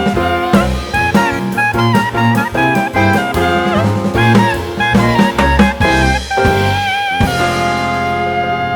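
Jazz music: a brass melody in quick notes over a drum kit, settling into a long held chord near the end.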